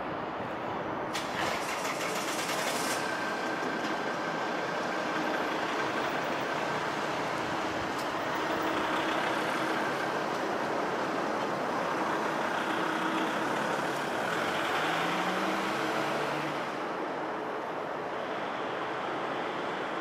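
Twin-engine jet airliner on landing approach, its engines a steady rushing noise with faint humming tones in it. A brief brighter hiss comes about a second in.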